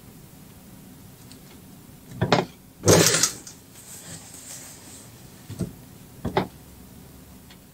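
Industrial sewing machine stitching in short bursts of a few stitches each: two a little after two seconds in, the longest about three seconds in, and two brief ones between five and a half and six and a half seconds.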